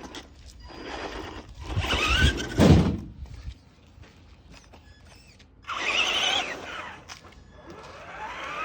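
Electric motor of a radio-controlled off-road truck whining as it speeds up and slows down, its pitch rising and falling, with a hard thunk about two and a half seconds in.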